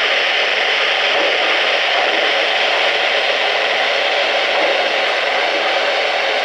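Lionel O-scale model freight train rolling past on three-rail track, the J1e Hudson's tender and a boxcar going by, a steady hissing rush with no distinct beats.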